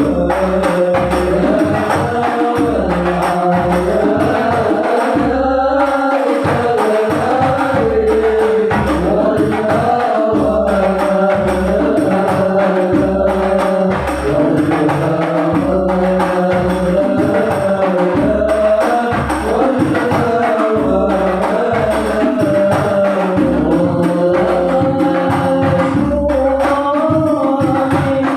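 Sholawat devotional singing over a steady beat of hand drums, the melody line held and ornamented throughout.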